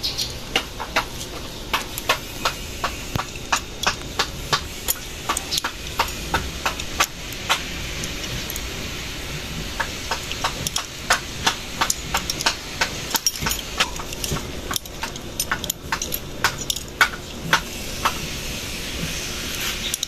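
Hand tools tapping and knocking on bicycle parts: many short, sharp, irregular strikes, a couple a second, over a steady background hiss.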